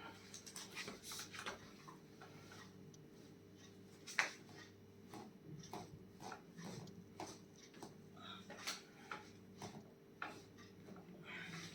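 Faint, irregular small clicks and taps, with one sharper click about four seconds in, over a low steady hum.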